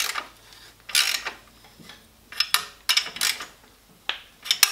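A ratchet wrench on an extension clicking in short strokes, several bursts about a second apart, as the exhaust header flange nuts are tightened a little at a time on each side.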